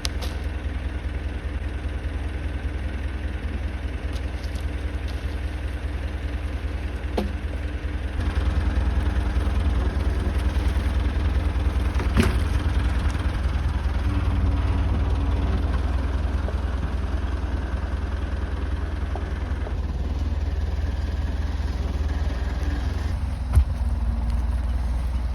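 Massey Ferguson tractor engine running steadily, picking up and running louder about eight seconds in. A few sharp knocks sound over it.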